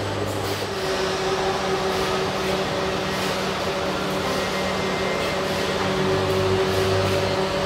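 Steady hum of industrial robots and body-shop machinery, several steady tones over a broad hiss, with a deeper tone that drops out about a second in and comes back near the end.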